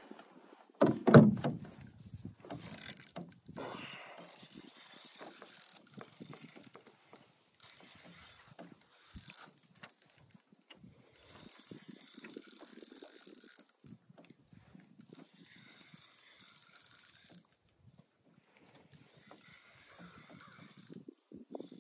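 Fishing reel being cranked in several spells of a few seconds each, its gears giving a steady fine clicking rattle as line is reeled in. A loud thump comes about a second in.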